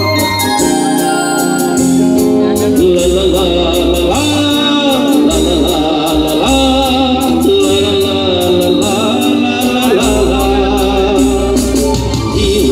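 Live band music played loud through a stage PA: keyboards, electric guitars and a steady percussion beat, with a male singer's voice coming in over them a few seconds in.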